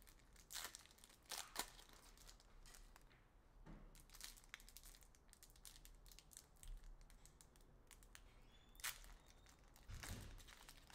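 Faint crinkling of trading-card pack wrappers and the light ticking of cards being handled and sorted, with a few louder crackles.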